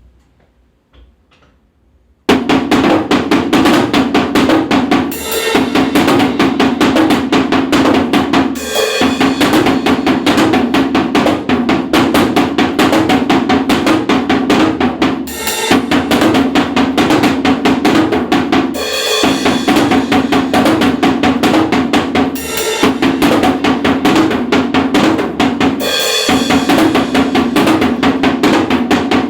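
Drum kit playing a fast, dense rhythm that starts about two seconds in, with brief breaks every three or four seconds. It is a drum sound effect signalling two minutes left before a test ends.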